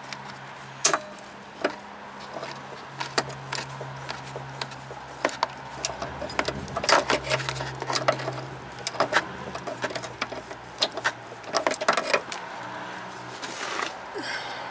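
Irregular clinks and taps of hand tools and metal parts during brake-line work, bunched most densely in the middle, over a steady low hum.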